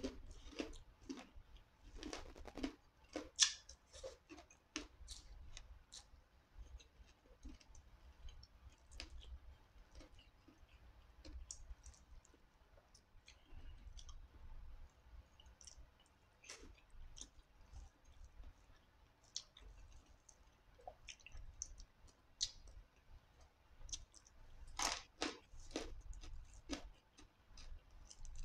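Close-miked eating sounds: chewing and small sharp mouth clicks as rice, fried dried fish and grilled eggplant are eaten by hand. The clicks come thick in the first few seconds, thin out in the middle, and bunch up again near the end.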